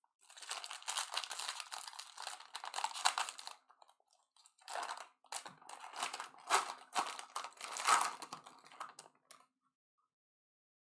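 Baseball card pack wrapper crinkling and tearing as it is ripped open and peeled off the cards, in two spells with a short pause between, stopping about a second before the end.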